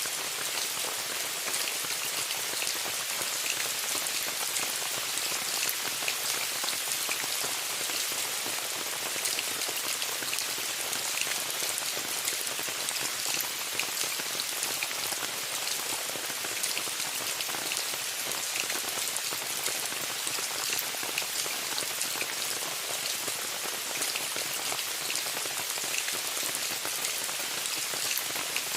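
Steady rain falling on a tent, heard from inside: an even hiss dotted with many separate drop taps.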